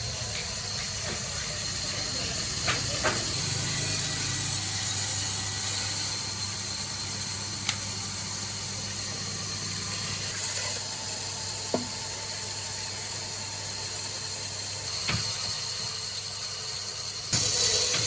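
Steady hissing machine noise over a low hum, with a few sharp clicks and two short louder surges, about ten seconds in and near the end.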